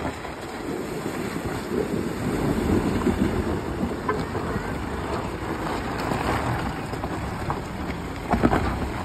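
Mahindra Bolero SUV's diesel engine running under load as it drives through a shallow river crossing and climbs out over loose rocks, with water sloshing and stones crunching under the tyres. A few sharp knocks of stones come near the end.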